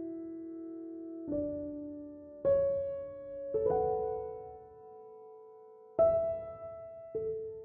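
Slow, soft solo piano music: sustained chords struck every second or two, each fading away before the next.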